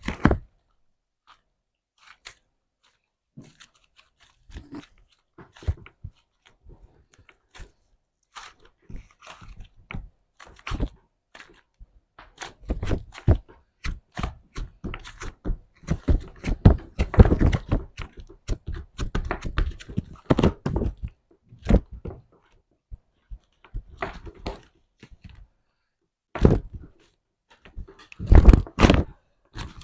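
Slime being squeezed and poked by hand, a run of sticky clicks and crunchy pops. They come sparsely at first, turn dense and loud in the middle, and pick up again near the end.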